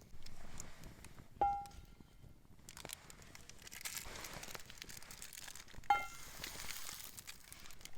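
Two light clinks, about four and a half seconds apart, each ringing briefly like a struck metal utensil or cookware, with rustling and crinkling in the middle of the stretch.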